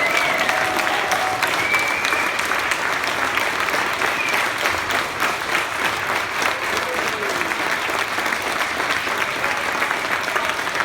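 A group of people applauding, steady dense clapping without a break, with a few voices calling out over it in the first seconds.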